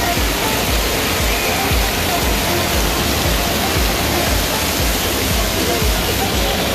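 Steady rushing and splashing of water from a water play structure's sprays and fountains, a constant din under an indoor waterpark's glass roof, with music and voices faint beneath it.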